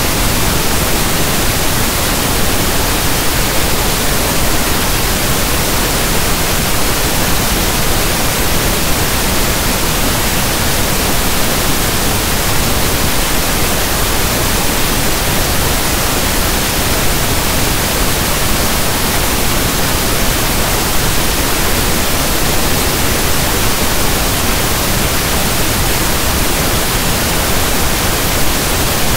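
Steady synthesized pink noise, a soft static hiss like a radio not tuned to a station, unchanging in level and character.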